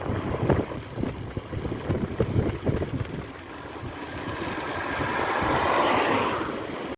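Wind buffeting the microphone and bumps during a bike ride. In the second half a passing vehicle's noise swells, peaks about six seconds in, then fades.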